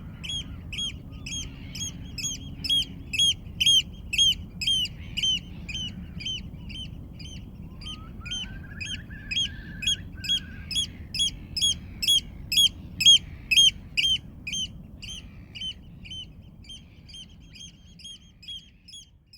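A bird repeating one short call over and over, about two to three times a second, while a second bird gives a brief rising trill about halfway through. A low steady rumble runs underneath, and the sound fades out at the end.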